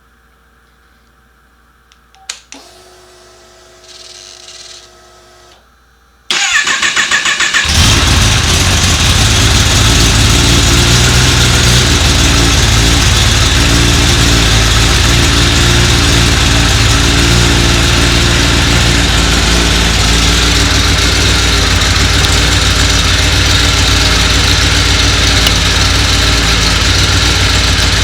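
Kawasaki ZX-10R inline-four being started for the first time after an ECU reflash and key-cycle reset. A click and a faint hum as the ignition comes on, then the starter cranks for about a second and a half and the engine catches and runs steadily at idle.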